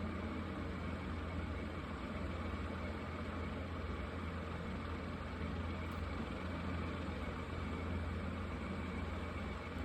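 Marker tips drawing on paper, giving a continuous scratchy hiss, over a constant low hum that is the loudest part of the sound.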